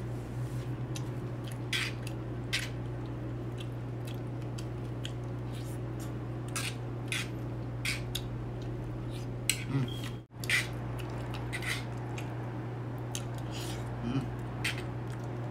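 Spoon and fork clicking and scraping against a metal sizzling plate, a few light clinks a second, over a steady low hum. The sound drops out briefly about ten seconds in.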